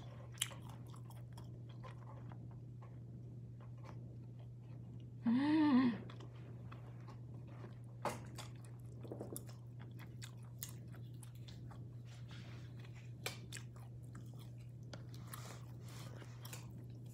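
A person chewing and biting food, with small clicks of wooden chopsticks and mouth sounds, over a steady low hum. About five seconds in there is one short vocal sound that rises and then falls in pitch.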